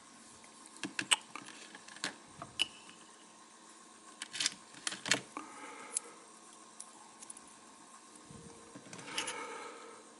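Small metal and plastic parts of a butane lighter clicking and tapping as they are handled and fitted back together, with a quick run of clicks about halfway through and a short rustle near the end.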